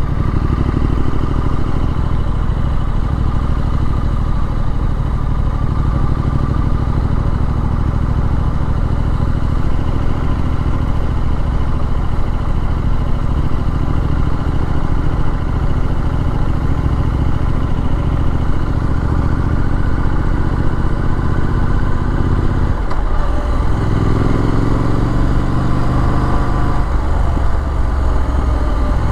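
Triumph Street Scrambler Sandstorm's 900 cc parallel-twin engine running steadily on the move. About 23 seconds in the engine note drops briefly and then rises again, as with a gear change.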